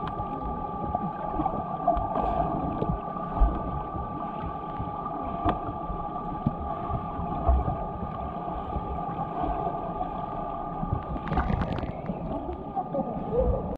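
Underwater swimming-pool sound heard through a submerged microphone: a steady hum with muffled water churning, and a brief crackle near the end.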